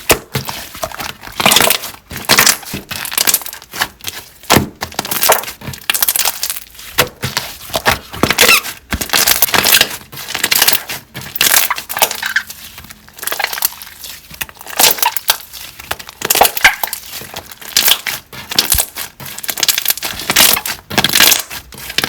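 Slime being squeezed and pressed by hand, giving repeated short crackly squishes, a few each second, with brief pauses between handfuls.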